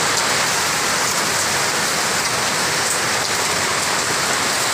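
Very heavy rain pouring down in a dense, steady hiss.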